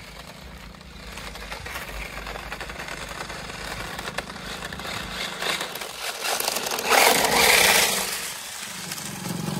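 Battery-powered RC drift car running over a concrete road toward the listener. Its motor and tyre noise builds gradually and is loudest about seven seconds in, as it passes close by.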